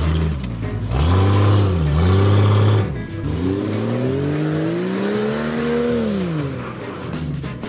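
Jeep Cherokee XJ engine revving up and down several times. The longest rev climbs slowly for about three seconds, then drops back about six seconds in.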